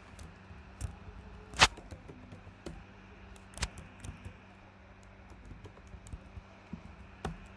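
Computer keyboard keys being typed and deleted: scattered irregular clicks, three of them louder, over a faint steady low hum.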